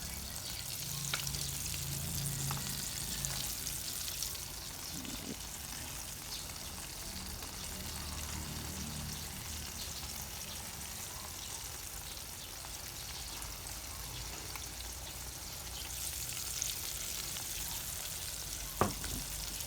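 Egg- and flour-coated chicken pieces sizzling steadily in hot frying oil, with one sharp click near the end.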